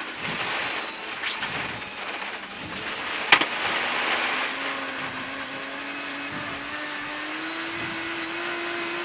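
Rally car's engine running hard under a steady rush of tyre and gravel noise, heard from inside the cabin. There is a sharp knock about a third of the way in, and from about halfway the engine note climbs steadily as the car accelerates.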